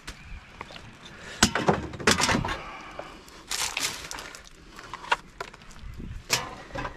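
Rubbish being rummaged through in a dumpster: a run of knocks and clatters as items are shifted, with a few sharper hits about one and a half, two, three and a half, five and six seconds in.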